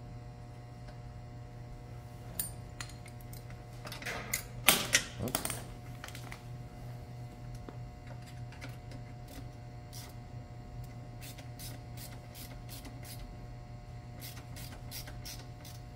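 Hand tool clicking as a screw on a Can-Am X3 door shock bracket is tightened down. A cluster of louder clicks and scrapes comes about four to six seconds in, then light, evenly spaced clicks about three a second.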